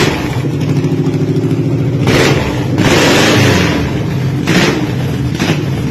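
Custom chopper-style motorcycle engine running and being revved: a throttle blip about two seconds in that is held for about a second and a half, then two short blips near the end, falling back to idle between.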